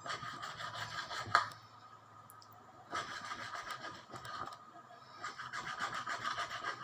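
Quick repeated scraping strokes of a knife working a raw milkfish, in three spells, with one sharp knock about a second and a half in.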